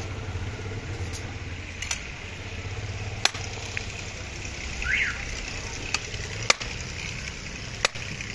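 Street ambience: a steady low engine-like hum with several sharp clicks and knocks scattered through it, and one short chirp about five seconds in.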